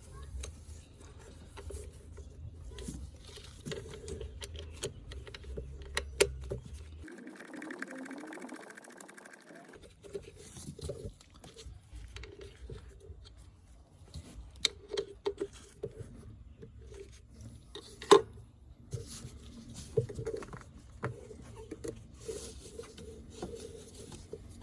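Scattered clicks, taps and light knocks of hand work and tools on a car's MAP sensor and its plug, with a faint low rumble underneath.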